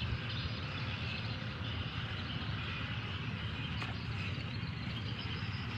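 Steady outdoor background noise: a low rumble with a faint high hiss above it, no distinct events.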